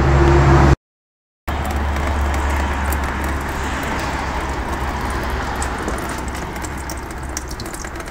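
Automatic transmission fluid draining in a thin stream from the 6L50 gearbox's pan into a catch container: a steady splashing hiss over a low hum, which slowly fades. A short silent gap comes about a second in.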